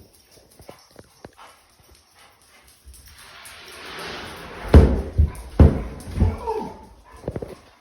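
Dogs barking, a quick run of loud barks starting about halfway through, after a few quiet seconds.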